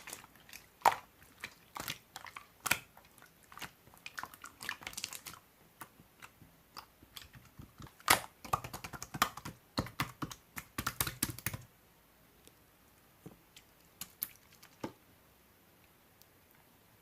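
Slime being squeezed and pressed by hand, giving rapid sharp clicks and pops that thin out to a few scattered clicks about two-thirds of the way in.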